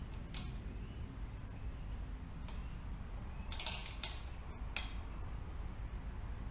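A cricket chirping steadily, short high chirps repeating just under twice a second. A few sharp clicks of hand tools on the bicycle's bolts cut in, a cluster of them in the middle.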